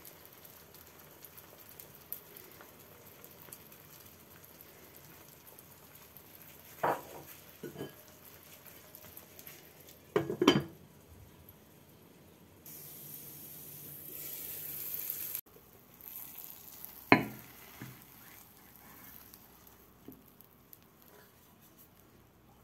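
An egg-and-tomato omelette frying quietly in a pan with a faint sizzle. A few sharp clinks and knocks of dishes and a glass pan lid, the loudest about halfway and again about three quarters through. A few seconds of louder hissing just after the middle stop abruptly.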